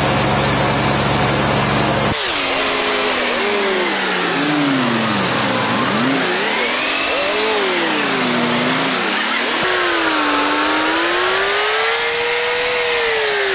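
An engine revving up and down repeatedly, its pitch rising and falling in long sweeps, starting after an abrupt change about two seconds in.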